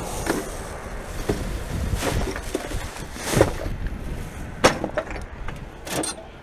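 Rubbish being shifted by hand inside a bin: scattered knocks and clatters, about half a dozen sharp ones at uneven intervals, over a low rumble.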